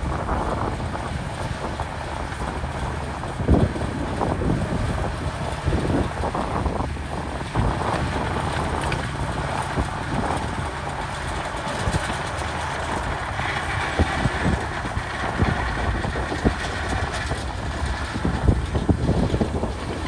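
Komatsu D61PX crawler bulldozer's diesel engine running under load while pushing sand, with its steel tracks clanking and knocking irregularly.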